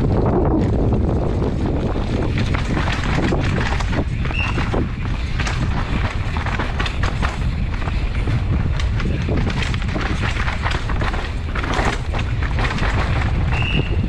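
Wind rushing over a helmet-mounted camera's microphone as a downhill mountain bike runs down a rocky trail at race speed, with frequent sharp clicks and knocks of the tyres and bike striking rocks.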